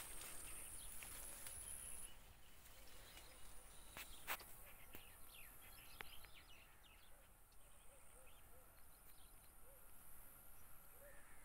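Faint outdoor ambience with scattered small bird chirps, and two sharp clicks about four and six seconds in.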